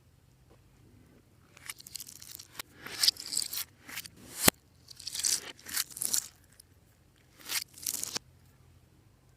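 Hands working clear slime with mixed-in items: a series of short, crisp, hissy bursts in uneven clusters, with one sharp click about four and a half seconds in.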